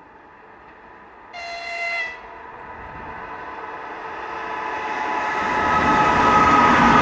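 EP2K electric locomotive approaching under power with a long passenger train. A short horn blast comes about a second in, then the locomotive's traction hum and the train's rumble grow steadily louder.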